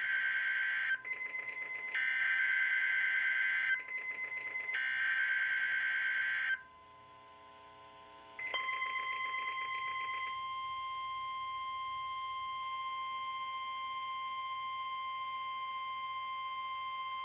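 NOAA Weather Radio weekly test signal. First come bursts of the SAME digital header, a fast, buzzing two-pitch data warble, ending about six and a half seconds in. Then, after a brief pause, the steady single-pitch 1050 Hz warning alarm tone starts at about eight and a half seconds and holds.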